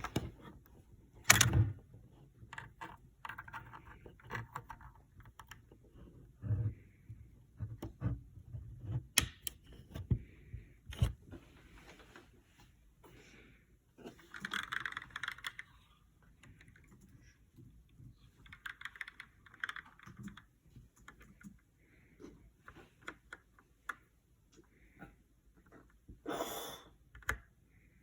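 Typing on a GK61 mechanical keyboard with Gateron Optical Brown tactile switches: an irregular run of keystroke clicks, with a few louder strikes, the loudest about a second in.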